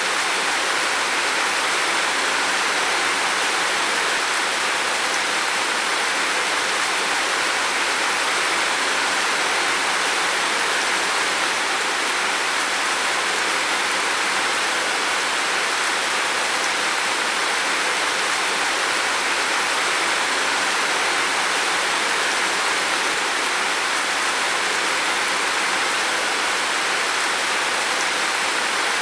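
Heavy rain falling on a roof, a steady, dense hiss.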